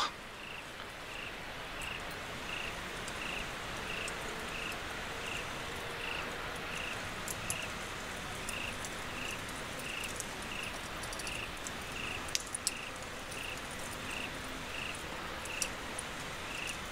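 A night insect chirping in an even rhythm, about one and a half short chirps a second, over a steady background hiss. A few faint crackles from a bed of glowing charcoal embers.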